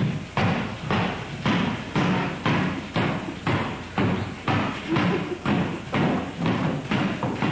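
A steady beat of heavy thumps, about two a second, evenly spaced.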